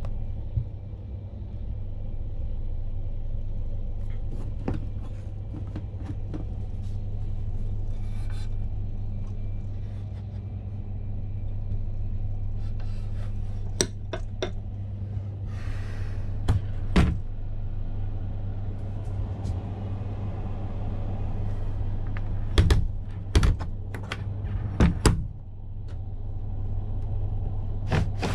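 Steady low hum and rumble inside a passenger train compartment, with a few sharp clicks and knocks from fittings being handled, the loudest about three quarters of the way through.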